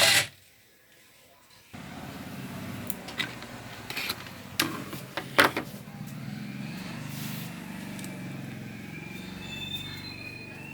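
The small electric drive motors of a joystick-controlled model wheelchair start up after a short pause and run steadily as it moves about. A few sharp clicks and knocks come a few seconds in.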